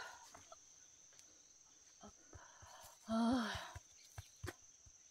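A steady high-pitched insect drone, with scattered light clicks and taps. About three seconds in, one short wavering voice-like call stands out above it.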